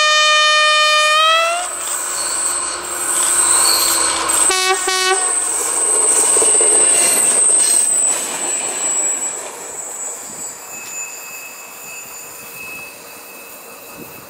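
Diesel freight locomotive sounding a long horn blast that glides slightly up in pitch at its end, then two short toots about four and a half seconds in. As the freight wagons pass, a high steady wheel squeal rings out, and the train noise fades in the second half as it moves away.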